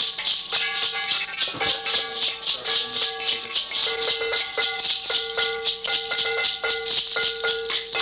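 Closing music: a steady shaker rhythm over held, sustained notes.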